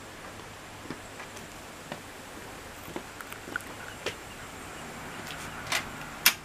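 A Shiba Inu's claws clicking on concrete as it walks up: sparse light ticks, then two louder clicks near the end.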